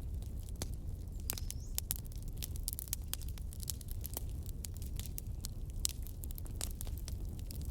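Burning logs crackling: irregular sharp pops and snaps over a steady low rumble of the flames.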